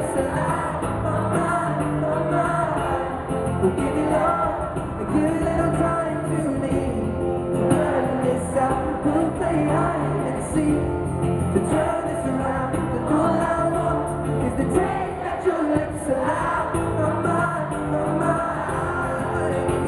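Live music: acoustic guitar with singing, recorded from the audience in an arena.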